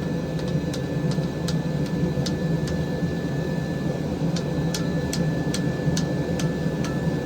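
A forge running with a steady roar, with faint sharp ticks scattered irregularly over it and a thin steady high whine.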